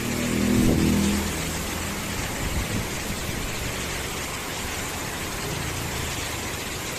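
Heavy wind-driven rain, a steady rushing hiss. A low, steady droning tone, like an engine, sounds under it for the first couple of seconds, then fades.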